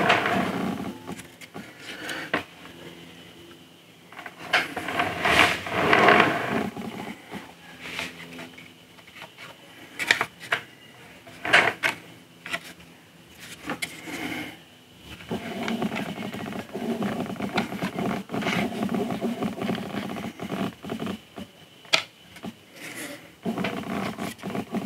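Hard unpainted sculpture-kit pieces being handled and test-fitted. Scattered clicks and taps of parts knocking against each other, with stretches of rubbing and scraping, the longest in the second half, over a faint steady hum.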